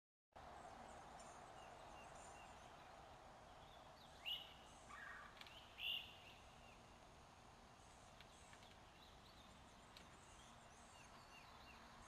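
Chickens calling: two short, sharp calls about four and six seconds in, with a fainter one between, over a steady background hiss.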